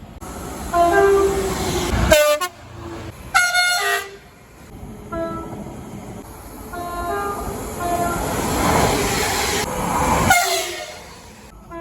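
Several short train horn blasts, each stepping between notes, over the rumble of a train running on the track. The sound changes abruptly a few times as one train gives way to another, and a long running rumble builds near the end.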